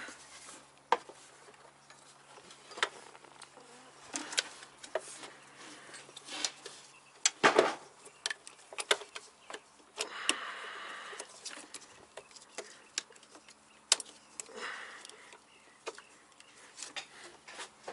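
Hands working around the pulleys of a VW 1.8T engine bay, feeding the accessory belt back on. Irregular light clicks and knocks, with a couple of brief rubbing sounds.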